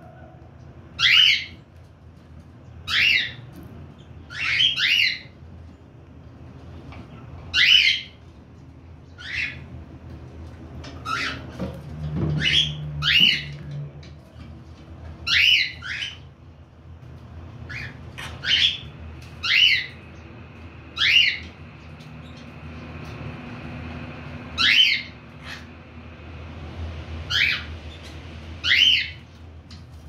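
Cockatiels giving short, sharp calls over and over, about one every second or two, some in quick pairs.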